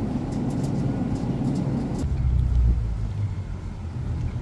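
Shop background with a steady low hum, then, after a cut about two seconds in, the low rumble of a car and road traffic.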